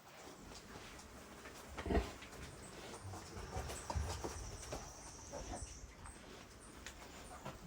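Sow and piglets in a pen: low grunting and shuffling, with a thump about two seconds in. A high chirping trill runs through the middle.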